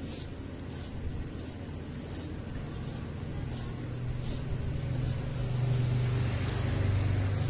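A small blade scraping the enamel insulation off the ends of copper magnet wire, in short strokes about every two-thirds of a second, baring the wire for connection. A low hum grows louder from about halfway through.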